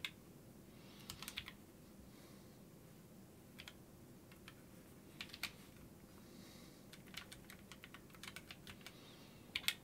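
Faint key presses on a Corne-ish Zen split keyboard with Kailh Choc low-profile switches, typed in short scattered bursts of a few keystrokes with pauses between.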